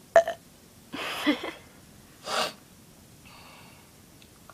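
A girl's short breathy vocal sounds: a quick gasp just after the start, a longer breathy sound with a little voice in it about a second in, and a sharp breath or sniff a moment later.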